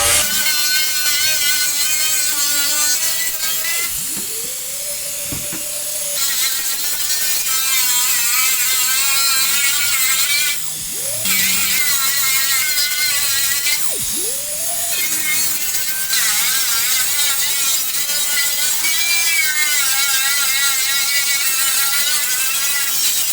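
Background music, with a small power tool whirring under it and spinning up a few times.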